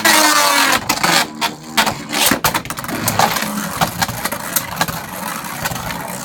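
Two Beyblade Burst spinning tops ripped off their launchers into a plastic stadium with a loud rush. They then spin with a steady whir and clack sharply again and again as they collide.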